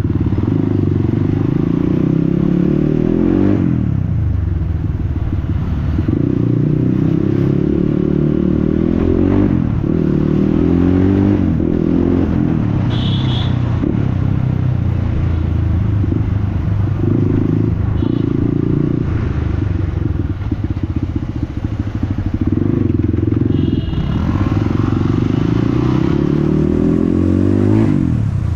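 Motorcycle with a loud exhaust riding along, its engine note rising and falling again and again as the rider accelerates and backs off.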